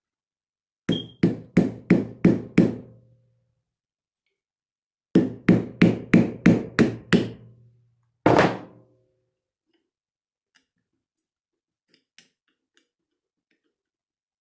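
Hammer blows on a steel axe head and its wooden handle while knocking out the barrel wedge and freeing the loose head: a quick run of six blows, a pause, a run of seven, then one more single blow, each with a short metallic ring.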